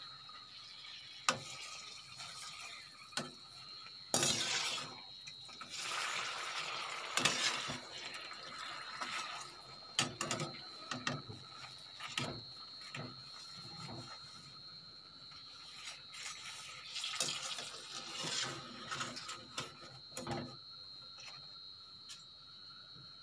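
Pappadams deep-frying in hot oil in an aluminium pan, with patches of louder sizzling, while a perforated steel skimmer scrapes and clinks against the pan in sharp clicks as they are stirred and lifted out.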